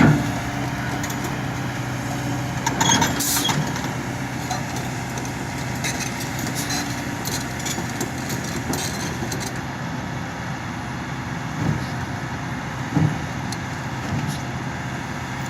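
Heavy diesel engine of a Kobelco SK220 XD excavator running steadily, with a burst of metallic clanking about three seconds in and a couple of knocks near the end.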